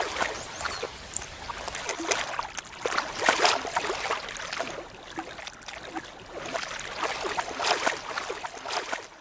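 Eurasian beaver gnawing and chewing wood: irregular crunching and clicking bites, over trickling stream water. The sound cuts off suddenly near the end.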